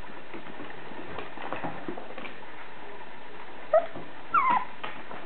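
Blue Thai Ridgeback puppy whimpering: a short high squeak a little under four seconds in, then a falling whine just after it.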